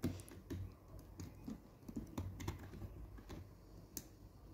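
Small irregular clicks and taps of plastic LEGO Technic parts being handled and pressed together, with a sharper click about four seconds in.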